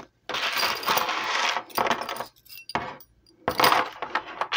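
Metal costume jewelry clinking and jingling as the pieces are handled and rummaged through, in several spells with short pauses between.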